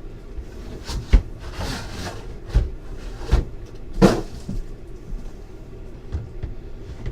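A sealed box of trading cards being handled and opened: a few knocks and thumps with brushing and rustling of packaging, the sharpest knock about a second in and another about four seconds in.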